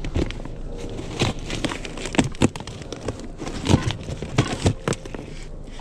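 Irregular knocks, clicks and rustling of household items being handled and moved about, over a low steady rumble.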